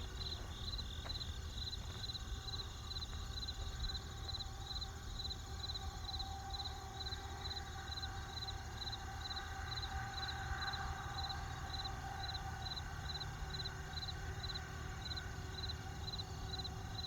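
Crickets chirping in an even rhythm, about three chirps a second, with steadier insect trilling behind them, over a low steady rumble from a campfire.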